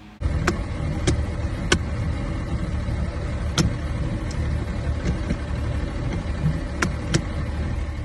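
An engine running steadily with a low rumble, with a few sharp clicks scattered through it.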